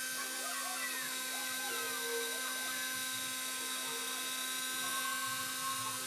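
National hand-held hair dryer running steadily: an even motor hum and whine under a rushing hiss of blown air.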